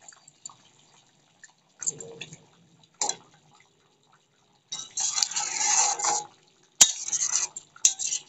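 Metal spatula stirring fish curry in a metal kadhai: scraping against the pan through the gravy, loudest in a stretch a little past halfway, then two sharp clinks on the pan near the end.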